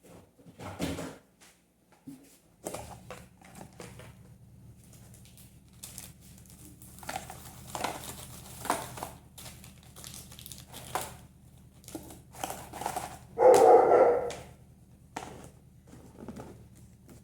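Household items being handled and set down: scattered knocks, clicks and plastic crinkling over a steady low hum, with one louder, longer sound about fourteen seconds in.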